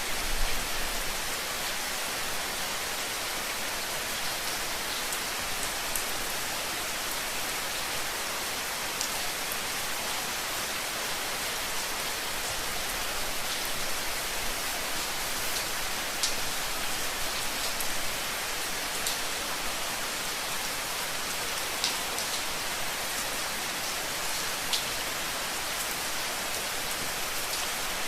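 Steady rain falling, an even hiss with scattered sharper drips ticking now and then.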